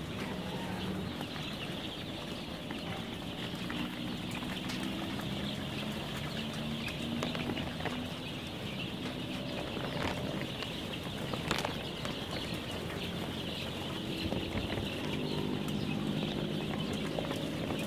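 Thousands of 12-day-old chicks peeping together, a dense, continuous chorus of short high calls. A low droning runs underneath, coming and going.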